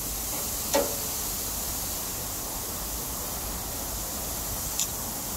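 Steady hiss of pork belly sizzling on a hot gas grill, with a sharp clink of metal tongs on the grate about a second in and a lighter click near the end.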